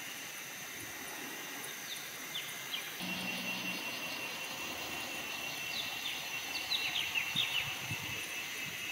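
Forest ambience: insects trilling steadily, with birds giving short, quick falling chirps, a few about two seconds in and a denser run from about six to seven and a half seconds.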